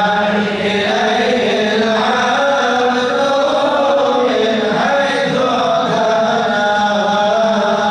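Men chanting a qasidah, a devotional Arabic poem, together through microphones: long melodic lines sung over a steady held low note, without a break.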